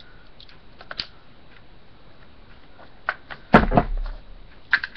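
Scattered clicks and knocks of hard plastic and metal parts as the rear push pin of a Tippmann A5 paintball marker is forced back into the receiver. A louder, longer sound with a falling pitch comes about three and a half seconds in.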